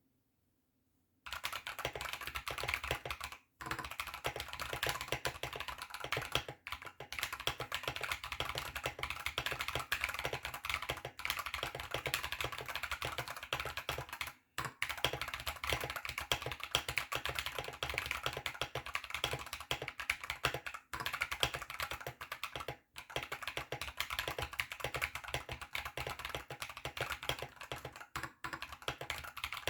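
Fast, continuous typing on a custom 60% mechanical keyboard in a bamboo case with lubed Akko Ocean Blue switches, clacky and loud. It starts about a second in, with a few short pauses.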